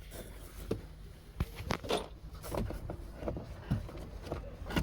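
Scattered light plastic clicks and knocks, several in a few seconds, from handling a loosened blower fan motor and pulling its electrical plug.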